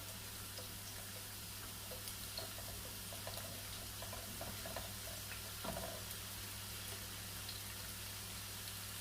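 Onion frying in hot olive oil in a pan: a steady soft sizzle with scattered small crackles.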